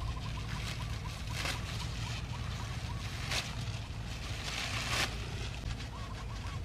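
Machete slicing through dry palm-leaf thatch: a few short, crisp rustling cuts, over a steady low rumble.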